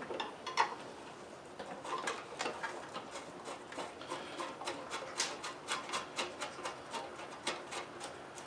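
Light clicks and taps from hand work on a push mower's engine: tools and small metal parts handled during reassembly. The clicks are irregular at first and come faster, about three or four a second, from about halfway through.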